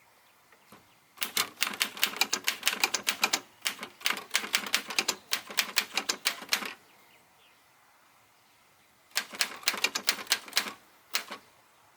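LC Smith & Corona Type 11 manual typewriter being typed on: rapid key strikes of the typebars in two runs of several seconds and a second and a half, with a pause between and one last single strike near the end.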